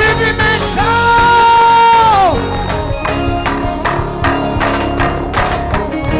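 Live worship band music with drums and guitar keeping a steady beat. About a second in, a long high note is held, then slides down at about two and a half seconds.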